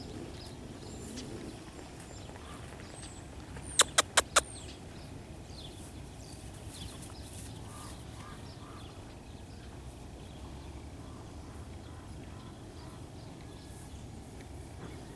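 Four sharp clicks in quick succession about four seconds in, over a steady low outdoor rumble with faint high bird chirps.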